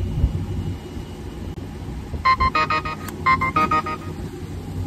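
Car wash pay terminal beeping: two quick runs of short electronic tones about two seconds in, as the card or phone payment goes through. Under it, the Dodge Charger R/T's V8 idles with a low, steady hum.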